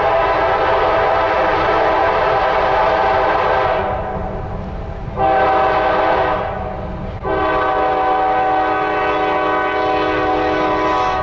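Train horn sounding three blasts: a long one, a short one about five seconds in, then another long one. Wind rumbles on the microphone underneath.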